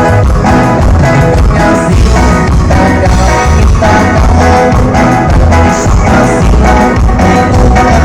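Live band playing loud amplified music at a sound check, with a steady bass beat under melodic instrument lines.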